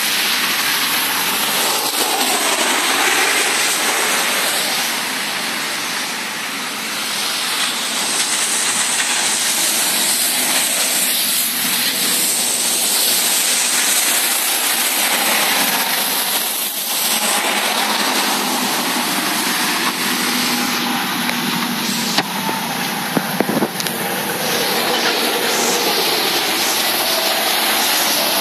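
Thunderstorm wind and rain making a loud, steady hiss, with a few sharp knocks about three-quarters of the way through.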